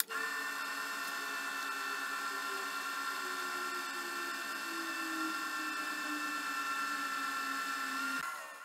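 Wood lathe running with a steady high motor whine, sped up fourfold, while a pen blank spins and is waxed with a paper towel. The whine cuts off near the end.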